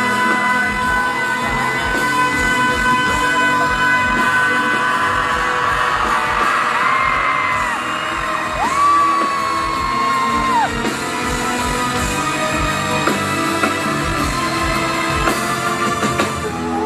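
Pop-rock band music with a steady drum beat under long, held high notes, sung or yelled without clear words. In the middle, two sustained notes each bend sharply down at their end.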